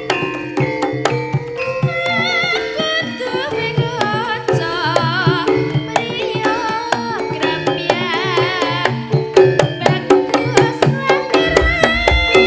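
Live jaranan gamelan music: quick hand-drum strokes under a wavering, ornamented melody line. A deep low beat joins near the end.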